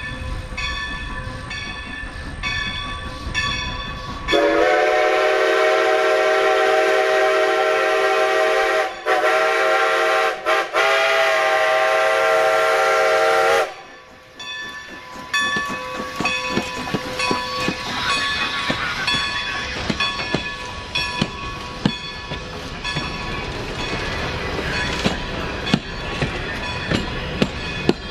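Grade-crossing bell ringing about twice a second, then Baldwin 2-10-0 steam locomotive #90 sounds its chime steam whistle in one long, loud blast broken twice briefly, lasting about nine seconds. The locomotive and its wooden coaches then roll over the crossing with a rattle of wheel clicks on the rail joints.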